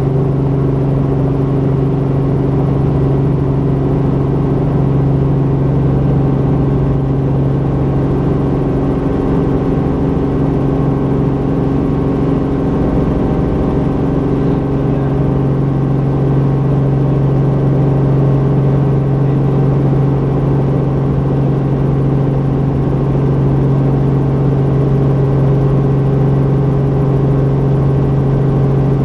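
Robinson R44 helicopter's piston engine and rotors running steadily, heard from inside the cabin as a constant droning hum with a strong low tone.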